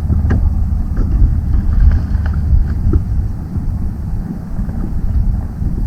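Wind buffeting the microphone as a steady low rumble on an open boat, with a few faint light knocks.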